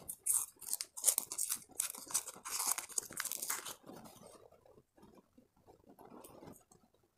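A lollipop wrapper crinkling and tearing as it is pulled open by hand, dense and crackly for about four seconds, then only faint handling noise.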